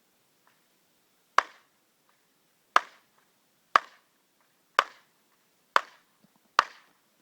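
Rifle shots: six sharp cracks roughly a second apart, each followed by a brief ringing tail.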